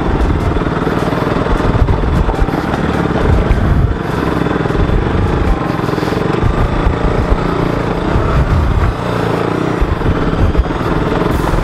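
Single-cylinder engine of a KTM RC sport bike running at low speed, labouring up a rough, rocky dirt trail, with the throttle rising and falling. The sound is uneven, with brief dips about four and nine seconds in.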